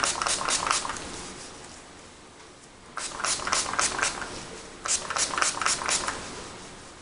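Latex-gloved hands rubbing wet dye into a dog's ear fur: quick, rhythmic scrubbing strokes in three bursts, at the start, about three seconds in and about five seconds in.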